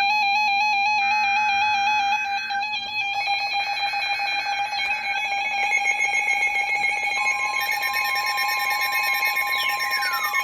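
Emergency alert tones for a Special Marine Warning: a loud warbling electronic tone starts suddenly, and several more beeping tones join in over the next few seconds until they all sound at once. Near the end a tone sweeps downward in pitch.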